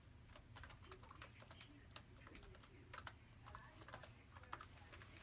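Faint typing on a laptop keyboard: irregular key clicks, a few a second, over a low steady hum.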